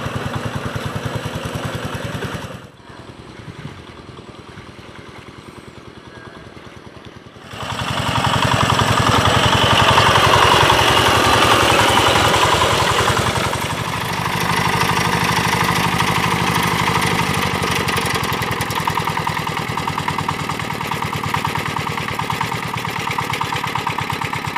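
Single-cylinder diesel engine of an old two-wheel hand tractor running with a steady firing beat as it works through a flooded rice paddy. A few seconds in, it turns quieter and more muffled for about five seconds, then comes back loud.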